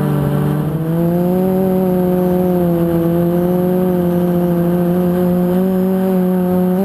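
QAV400 quadcopter's brushless motors and propellers whining in flight. The pitch and level dip under a second in, then rise again and hold fairly steady as throttle comes back.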